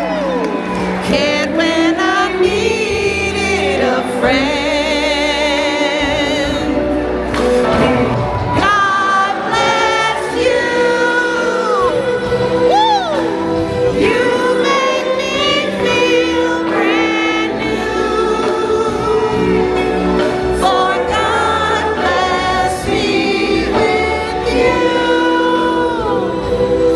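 Live soul music: vocalists hold long notes with heavy vibrato and slide between pitches over a steady band accompaniment, with several voices singing together at times.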